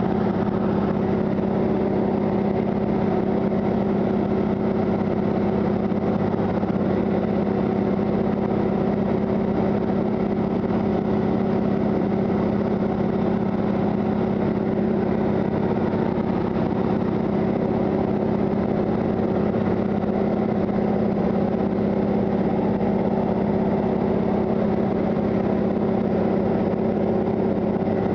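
De Havilland Beaver's radial engine and propeller running at steady power in flight, heard inside the cabin as a constant, even drone.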